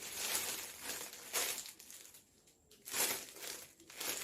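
Packaging crinkling and rustling as items are handled, in several short bursts, the longest in the first second.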